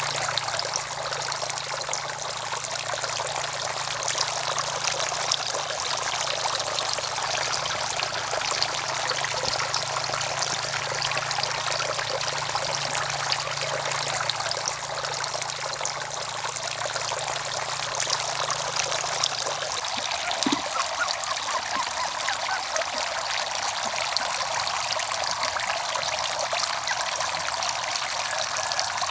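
Water spouting from clay-pot fountains and splashing into a small pond, a steady trickling and pouring. A faint low hum underneath stops about two-thirds of the way through.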